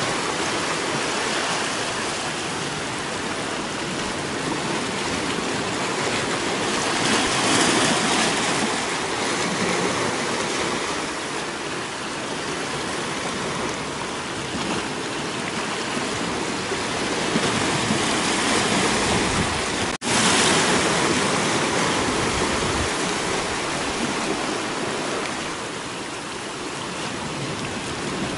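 Sea waves washing in over a rocky shore and draining between the rocks: a steady rush of water that swells and eases, broken by a split-second dropout about two-thirds of the way through.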